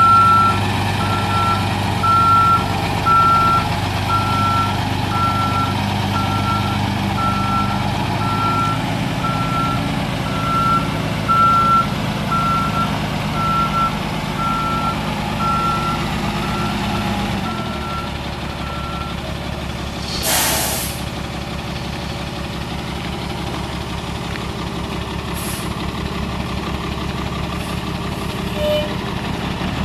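Peterbilt 330 dump truck's Caterpillar 3126 diesel running while reversing, its backup alarm beeping steadily about once a second; the beeping stops about two-thirds of the way through as the engine settles to a lower note. A loud hiss of air from the air brakes about twenty seconds in.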